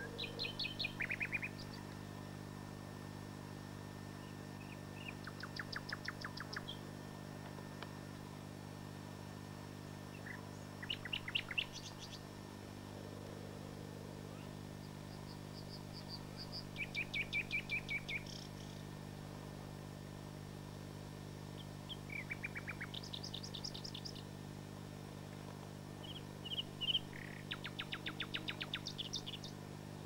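Southern nightingale singing in short phrases about every five or six seconds, each phrase mixing clear whistles with fast runs of repeated notes.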